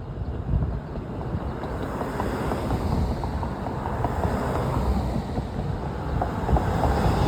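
Wind buffeting the microphone with a low rumble, over road traffic noise that swells during the first few seconds and then holds steady.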